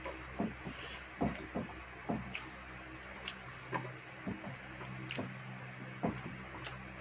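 Eating by hand from steel plates: fingers scraping and mixing rice against the metal, and chewing, in irregular short clicks and smacks over a steady low hum.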